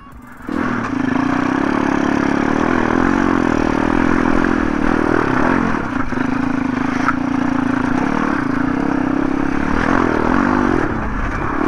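MRF 140 RC pit bike's single-cylinder four-stroke engine running steadily under throttle while riding, coming up loud about half a second in and holding a fairly even note with small rises and falls.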